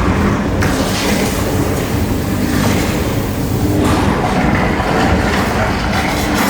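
Loud, continuous rumbling and rattling from the staged earthquake effects of a theme-park tram ride, with the clatter of a subway train crashing into the set.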